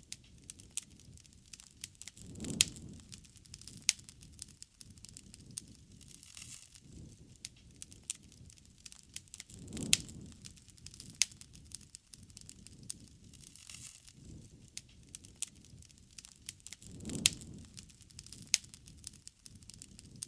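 Wood fire crackling, with frequent sharp pops and snaps. A soft low rush swells about every seven seconds.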